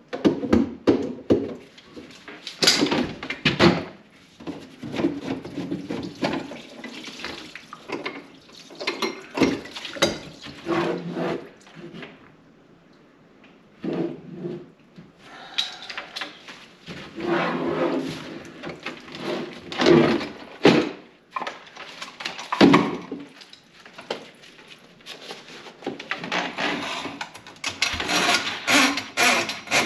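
Water sloshing and gurgling in a plugged kitchen sink, in irregular surges with scattered knocks and clatter.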